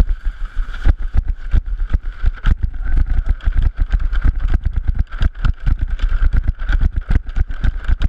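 Toboggan speeding down an iced wooden chute: a rapid, irregular clatter of knocks as it rattles along, over a steady hiss and a heavy low rumble of wind buffeting the microphone.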